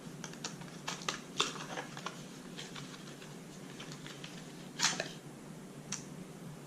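Hands handling and opening a small cosmetic sample package: light clicks and taps, with a short louder rustle about five seconds in.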